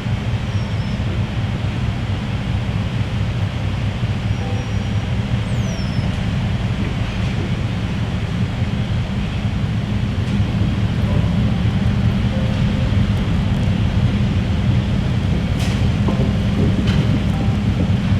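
Diesel locomotive running with a steady low rumble that grows a little louder over the second half, with a few sharp clicks near the end.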